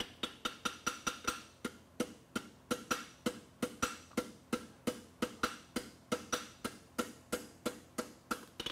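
Steady hand-hammer blows, about three a second, on a red-hot steel horseshoe bar held over the anvil horn, each strike followed by a short ring from the anvil. This is the quarter bend being forged into a horseshoe.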